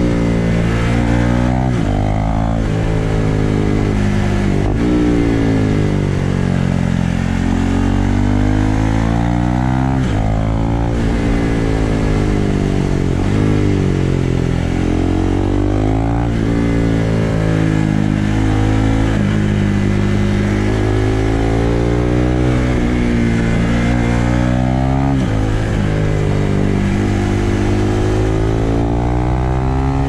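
Husqvarna Vitpilen 401's single-cylinder engine under way, its pitch climbing and falling again and again as the rider accelerates and eases off through bends. Sudden drops in pitch between the climbs mark gear changes.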